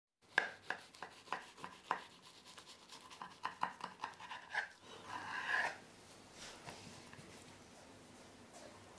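Knife cutting through a toasted tortilla omelette on a wooden board: a run of sharp crackling clicks, about three a second, for roughly five seconds. Then a short scraping crackle, after which it goes quiet.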